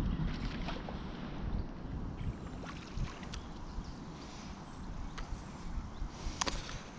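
Wind buffeting the microphone in a low, steady rumble, with a few faint light clicks or knocks.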